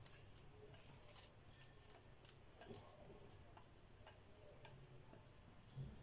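Near silence with faint, scattered light clicks as fries and cold cuts are tipped from a glass bowl into a clay baking dish, and a soft low knock near the end.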